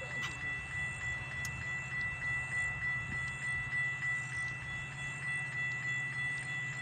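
Railroad grade-crossing warning bell ringing steadily in a fast, even rhythm.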